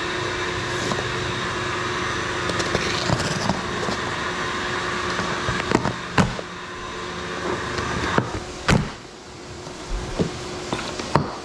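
A Fanuc Robodrill CNC mill running steadily with a constant hum, broken by several sharp knocks and clicks of metal parts and packaging being handled; the running noise drops away about eight seconds in, leaving a few quieter knocks.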